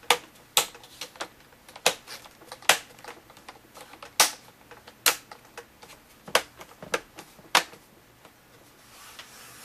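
Plastic display bezel of a Dell Latitude E6530 being pressed back onto the screen lid, about a dozen sharp clicks at uneven intervals as its clips snap over the latches.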